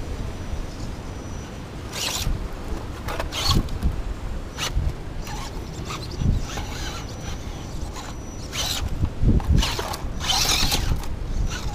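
Radio-controlled rock crawler's electric motor and gears whirring in about half a dozen short bursts as it is driven down a rock crack, with its tyres scrabbling on the rock; the bursts come closer together near the end.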